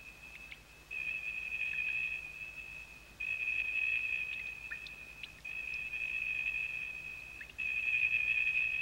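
A high, bell-like ringing tone struck about every two seconds, each note starting suddenly and fading slowly, with a few faint ticks between the notes.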